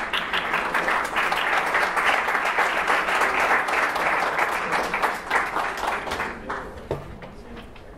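Audience applauding, dying away about six and a half seconds in.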